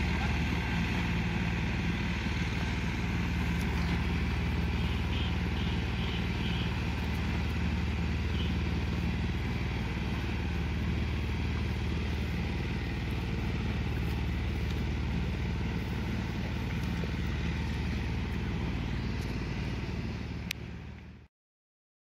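Greaves 10 HP engine of a BCS three-wheel reaper binder running steadily as the machine cuts wheat. The sound cuts off suddenly near the end.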